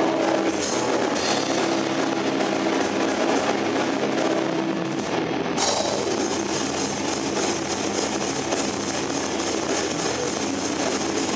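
Live heavy metal band playing: distorted electric guitars over a drum kit. About halfway through, fast, even cymbal hits come in and the sound gets brighter.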